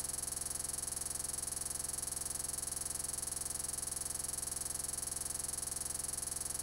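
Steady electronic buzz with a high whine and a fast, even pulse, unchanging throughout: glitched, looping audio from a corrupted recording.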